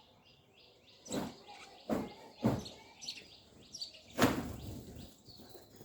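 A bird chirping in quick, repeated short calls, with several sharp knocks in between; the loudest knock comes about four seconds in.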